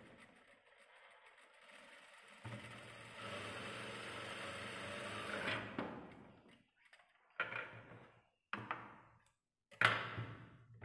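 Jack industrial single-needle lockstitch sewing machine stitching a seam: one steady run of a few seconds, then three short bursts of stitching near the end.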